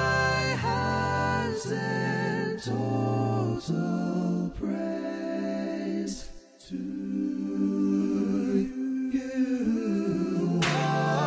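Intro music of a cappella vocal harmony, voices holding chords that change about once a second, with a brief pause about six seconds in.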